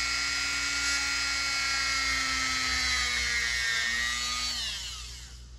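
Dremel rotary tool with a conical grinding-stone bit running at a steady whine while it starts a hole in thin styrene sheet. About four seconds in it is switched off and the whine falls in pitch and fades as the tool spins down.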